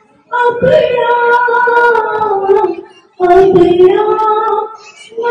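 A woman singing unaccompanied into a microphone: two long sung phrases with held notes, with a short break between them.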